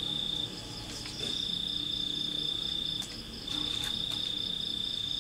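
Insects trilling: one steady high-pitched trill that breaks off briefly about half a second in and again about three seconds in, with a fainter pulsing chirp from another insect just above it.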